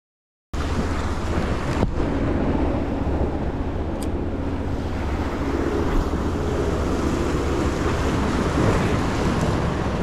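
Wind buffeting the microphone over surf washing against shore rocks, a steady rushing noise with a deep rumble, starting abruptly about half a second in.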